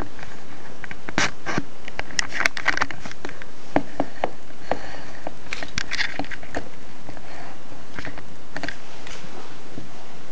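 Irregular light plastic clicks, taps and rattles from Lego parts of a brick-built rifle being handled and worked.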